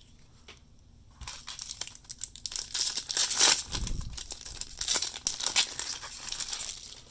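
Foil wrapper of a baseball card pack crinkling and tearing as the pack is ripped open, starting about a second in.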